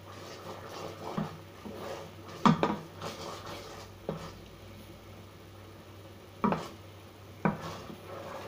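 A spoon knocking and scraping against a saucepan while a honey syrup is stirred: about five irregular knocks, two of them louder, over a low steady hum.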